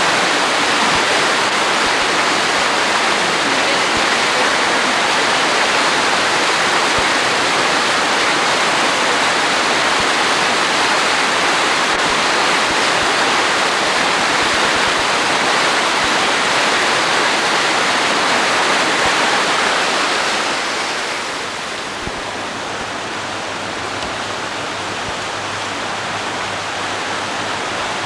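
Loud, steady rush of a swollen creek pouring over a waterfall, running higher than usual. The rush drops a little in level about three-quarters of the way through.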